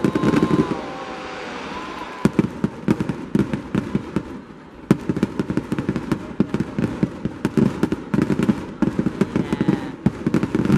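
Fireworks going off: rapid, irregular bangs and crackling that come in dense volleys at the start, about five seconds in, and again near the end.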